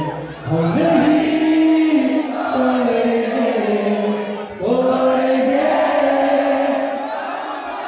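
A crowd of men chanting together in unison, in two long sung phrases with held notes.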